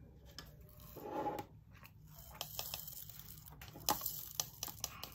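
Small round resin diamond-painting drills pattering and clicking as they are poured from a plastic funnel tray into a small plastic storage container, with a sharper plastic click near the end.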